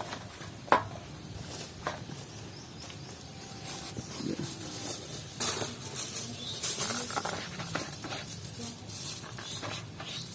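Hands rubbing a spice-and-mustard-oil paste into a whole raw chicken, making irregular rubbing and slapping noises, with one sharp tap about a second in.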